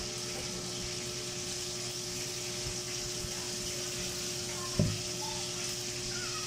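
Steady background hiss with a constant low hum, and a single dull thump a little under five seconds in.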